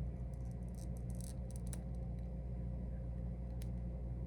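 Faint light clicks and taps of a small plastic figure being handled and set onto its plastic stand, over a steady low hum.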